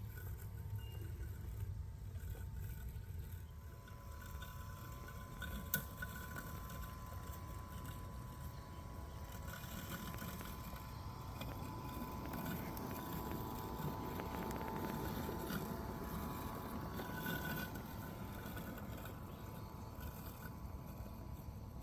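Husqvarna 450XH robotic lawnmower running: a steady, thin electric motor whine over a low rumble, getting somewhat louder through the middle, with one sharp click about six seconds in.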